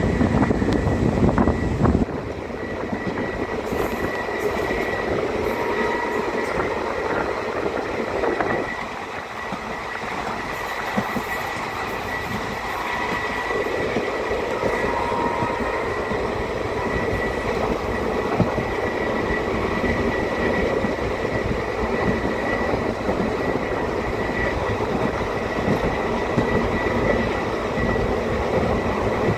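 Train running on rails: a steady rumble of wheels and carriages with a thin steady whine over it, louder for the first two seconds and dipping briefly about nine seconds in.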